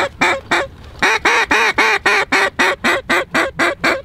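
Mallard duck call blown in a long, rapid series of loud quacks, about three to four a second, with a short break about half a second in, the notes growing shorter and slightly quieter toward the end. The hunter is calling to a flock of ducks in the air to turn them toward the decoys.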